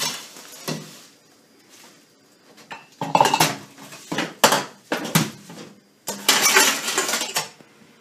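Hard objects clattering and scraping in a stainless steel sink, among them a wet rusty iron padlock: a run of separate knocks and clanks, then a longer, louder scrape of about a second and a half starting about six seconds in.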